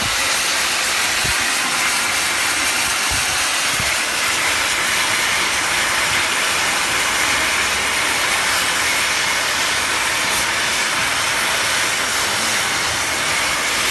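CNC oxy-fuel flame cutting torch hissing steadily as its gas jet cuts steel plate, a constant loud hiss with no breaks.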